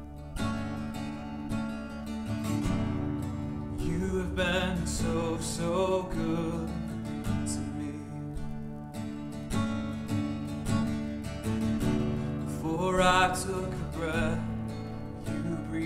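Worship band music led by a strummed acoustic guitar over a sustained backing, with a wavering melody line rising above it now and then.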